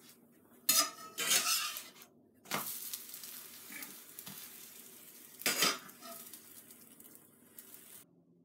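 A metal spatula scraping against a stainless steel frying pan to loosen and turn a pancake, over the sizzle of the frying batter. The loudest scrapes come about a second in, again at two and a half seconds, and again at about five and a half seconds.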